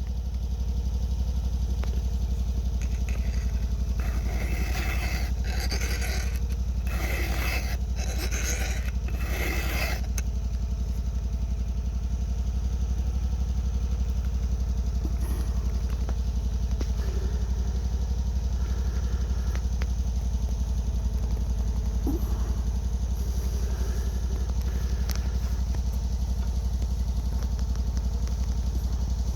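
A hand file worked across a dull chainsaw chain tooth to sharpen it: about six scraping strokes roughly a second apart, then quieter scattered sounds. A steady low drone runs underneath.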